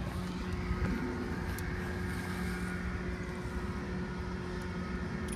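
Steady mechanical background hum with several held tones and no clear shot or impact.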